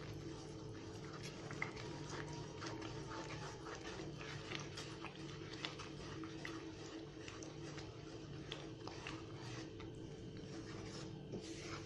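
Wooden spatula stirring thick, sticky Mysore pak batter of gram flour, sugar syrup and ghee in a non-stick kadai, making faint irregular squelches and small ticks, over a steady low hum.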